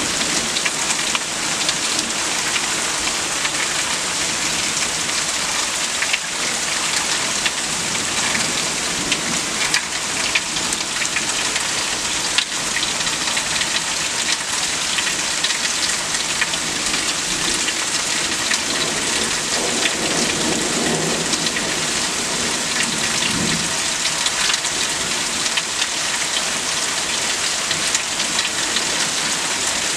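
Steady rain from a severe thunderstorm, with many small drop ticks. A low rumble of thunder swells about twenty seconds in and dies away a few seconds later.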